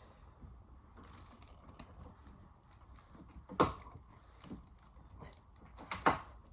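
Small scattered clicks and taps of a screwdriver working at a screw on a door closer, with two sharp, louder clicks about halfway through and near the end. The screw head is a bit rounded, so the bit does not grip it well.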